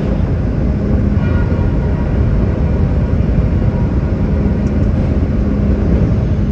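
Hardwood sawmill headrig and log carriage running as a log is sawn: a loud, steady mechanical rumble with a low hum underneath.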